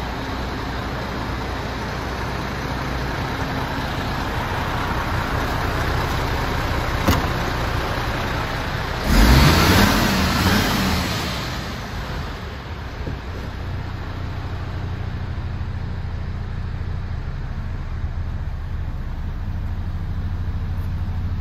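MAN TGX 26.480 tractor unit's diesel engine idling with a steady low hum. A click comes about seven seconds in, and a loud rushing noise follows about nine seconds in and fades over two to three seconds. After that the idle carries on, heard from inside the cab.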